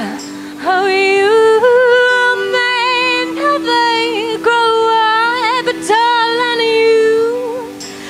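A woman's voice singing long held notes with vibrato and sliding pitch, over sustained accompanying notes, in a live band performance.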